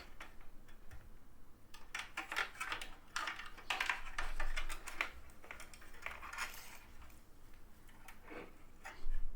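Irregular light clicks, clinks and rustling from power-supply cables and connectors being handled and pushed through inside a small PC case, in uneven clusters with short pauses.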